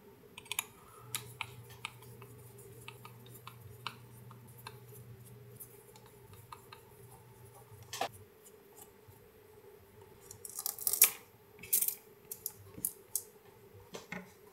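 Small hex screws being backed out of an RC crawler wheel with a hex driver, giving scattered light metal clicks and ticks. A busier run of clicks comes near the end as the small screws are handled and set on the bench mat. A faint low hum lies under the first half.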